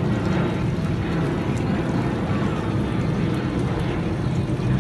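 Steady low roar of a Boeing 737-800's CFM56 jet engines as the airliner flies overhead.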